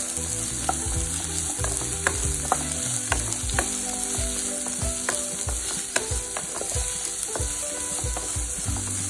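Chopped onions sizzling in hot oil in a frying pan as they are stirred and sautéed on high flame. The stirring utensil knocks and scrapes against the pan at irregular moments.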